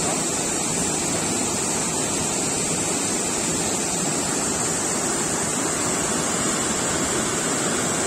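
Waterfall cascading over a rock ledge into a pool: a steady, even rush of falling water.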